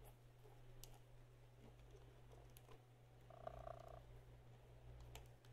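Near silence: a few faint clicks of a small screwdriver tip against the screws in a GPS unit's plastic back, over a low steady hum. A faint short tone is heard about three and a half seconds in.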